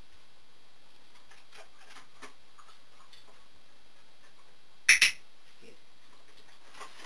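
A dog-training clicker clicked once about five seconds in: a sharp double click as it is pressed and released, marking the dog's correct leg lift.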